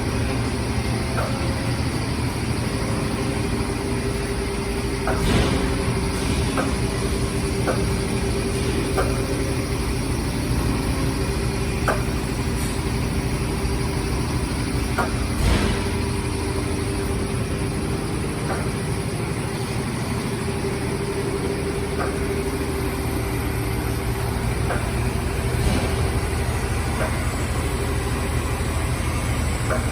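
CNC turret punch press running: a steady machine hum with a constant tone, broken by sharp, short hits every second or two and a couple of heavier knocks.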